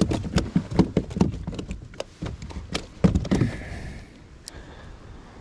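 An irregular run of sharp clicks and dull knocks from rod and gear being handled against a plastic fishing kayak, dying away after about three and a half seconds.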